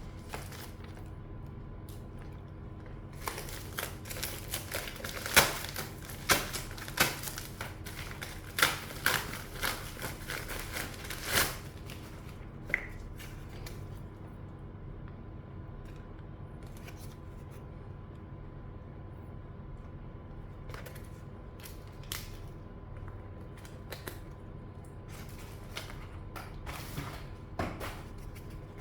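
Scattered sharp clicks and taps of small hard plastic parts being handled, artisan keycaps and a mechanical keyboard, with a cluster of louder clicks in the first half and only occasional ones later, over a faint steady hum.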